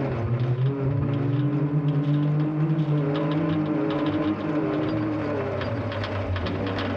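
Turbocharged side-by-side UTV engine running under hard throttle, its pitch climbing, holding, dropping about four seconds in, then climbing again near the end, with a scatter of sharp ticks.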